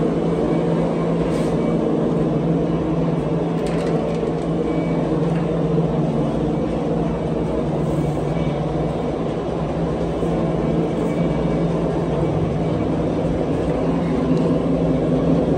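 A machine running steadily with a low, even hum that holds the same pitch throughout.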